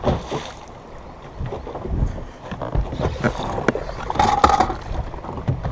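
Lake water lapping and slapping against a bass boat's hull, with scattered knocks and clatter on the deck and a brief louder rasp just past four seconds.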